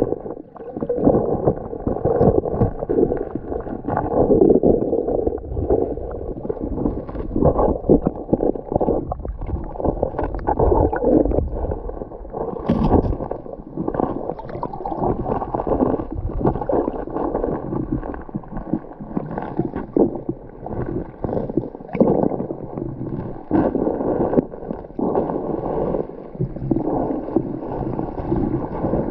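Water of a small forest-stream waterfall splashing and gurgling in a constant, uneven rush, heard muffled with little high-pitched hiss.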